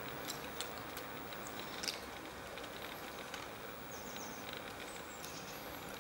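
Norwegian elkhound with its muzzle in frosty grass, making scattered small clicks and rustles as it sniffs and mouths at the ground.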